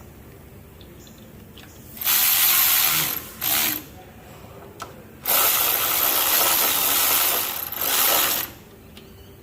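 Ratchet wrench being cranked in quick bursts: about a second of rapid clicking about 2 s in, a short burst after it, then a longer run of about three seconds.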